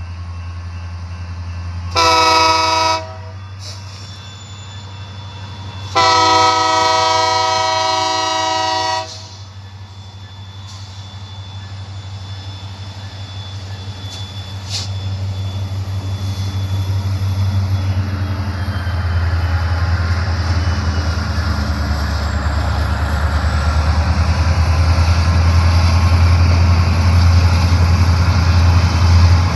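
Union Pacific diesel locomotive's air horn sounds one short blast and then a long blast of about three seconds. After that the locomotive's engine rumbles, growing steadily louder as the train approaches.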